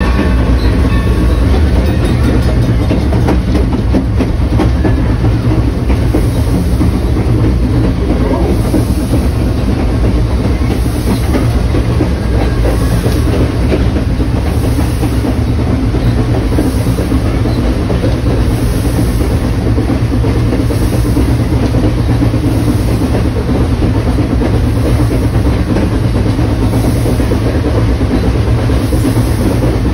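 Steam locomotive No. 3025 running along the track, heard close up from its front running board: a loud, steady rumble and rattle of wheels and running gear on the rails, with a faint pulse about every two seconds.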